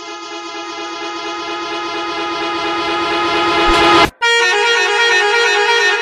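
A long, steady train-style horn blast, growing louder, cuts off about four seconds in. A second, higher-pitched horn tone starts right after.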